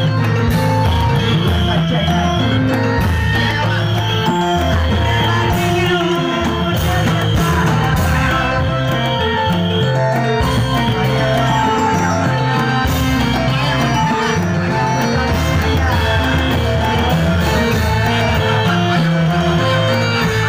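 Loud live music for a reog dance show: held melody notes over a steady, repeating low rhythm, without a break.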